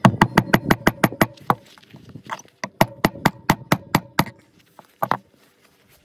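Claw hammer driving a nail into a cut tree branch resting on a wooden board: two quick runs of sharp taps, about six a second, with a pause about two seconds in and a last pair of taps near the end.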